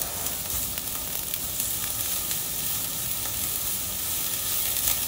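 Shimeji (beech) mushrooms sizzling in hot olive oil in a stainless steel frying pan while a silicone spatula stirs them: a steady frying hiss with faint ticks.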